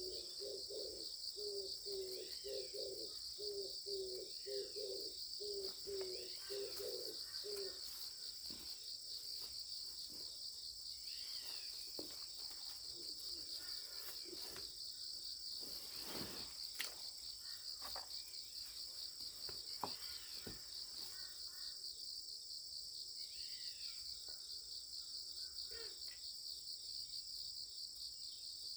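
Steady high-pitched chorus of insects with a fine, fast pulse, over which birds give scattered short chirps. A low, repeated pulsing call sounds through the first several seconds, and a few sharp clicks come around the middle.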